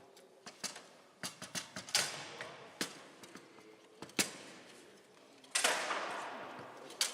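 Foosball being played: irregular sharp clicks and knocks of the ball striking the rod figures and the table walls. About five and a half seconds in, a louder rush of noise rises sharply and fades away.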